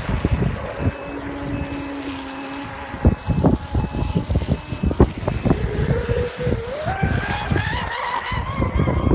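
TFL Genesis RC catamaran's Hobbywing 6S electric power system whining, rising steadily in pitch from about halfway through as the boat speeds up. Irregular low thumps run underneath.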